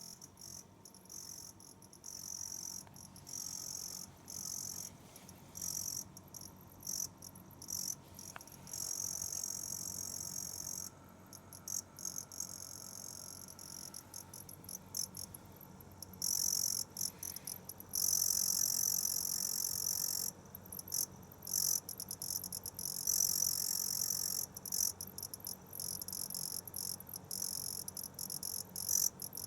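Electric storage heater making an abnormal noise: a high-pitched, insect-like chirping that comes and goes in uneven bursts, loudest about two-thirds of the way through, over a faint steady low hum. The noise is a fault that came back after the heater was serviced.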